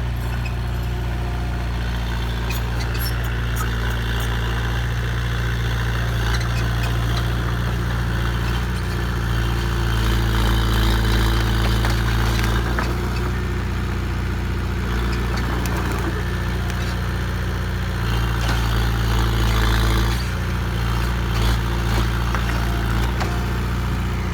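Heavy diesel engine of a construction machine running steadily, revving up louder twice, about ten seconds in and again near twenty seconds, with scattered clanks over it.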